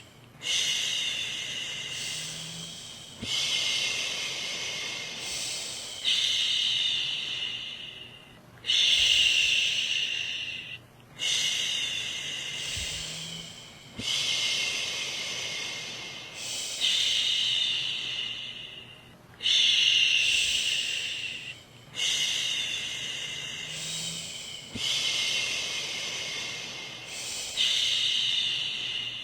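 A woman's voice shushing a baby to sleep: long "shhh" sounds repeated about every two and a half to three seconds, each starting loud and trailing off.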